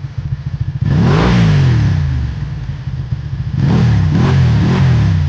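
Motorcycle engine running with a quick pulsing beat, revved up and back down about a second in, then blipped several times in quick succession in the second half.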